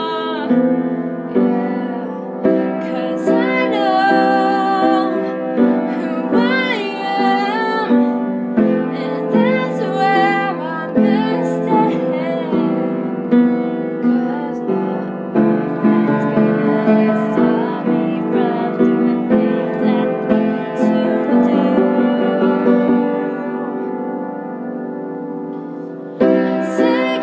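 A woman singing with vibrato, accompanying herself on an upright piano. Near the end a held piano chord fades away for a few seconds before she plays on.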